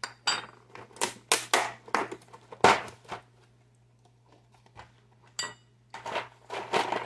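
Plastic clamshell tub of cashews crackling and clicking as it is handled and opened, with the nuts shifting inside: a quick run of sharp clicks and crinkles, a pause of about two seconds, then more clicking and rustling.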